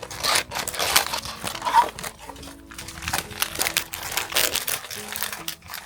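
Plastic packaging crinkling and rustling in the hands as a blind box is unwrapped, in quick irregular crackles, over soft background music.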